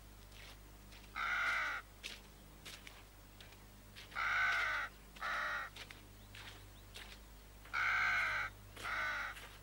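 A crow cawing five times: one caw about a second in, then two pairs of caws, over a faint steady low hum.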